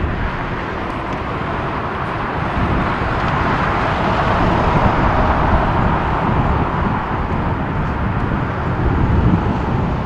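Japan Airlines Boeing 787's jet engines at high thrust as the airliner climbs away, a steady roar that swells in the middle and eases slightly near the end. Gusty wind buffets the microphone with a low, uneven rumble.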